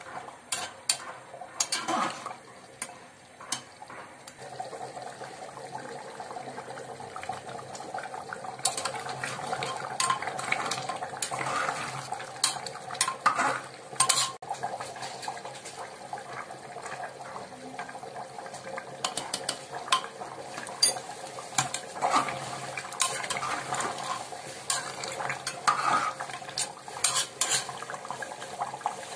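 Metal spoon stirring beef korma in an aluminium pressure cooker, clinking and scraping against the pot's sides with irregular sharp knocks, over the steady bubbling of the curry simmering.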